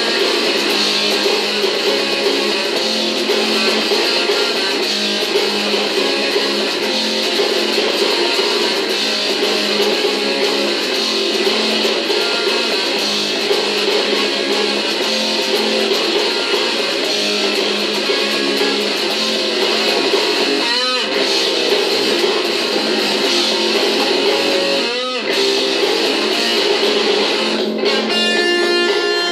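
Strat-style electric guitar played through an amp, chords strummed without a break. Two quick pitch sweeps come past the middle, and near the end a chord is left ringing.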